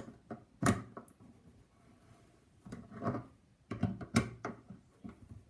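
Faucet parts being handled and tightened back down during a cartridge repair: a few sharp knocks and clicks, one about a second in and a cluster around four seconds in.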